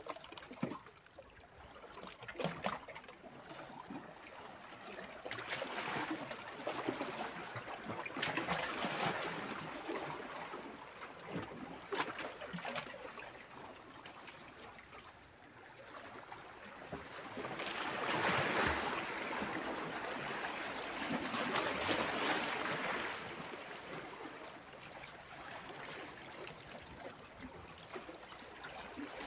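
Small sea waves washing among shoreline boulders, with water trickling and sloshing through the gaps between the rocks. The water swells and ebbs in slow surges, the loudest about two-thirds of the way through.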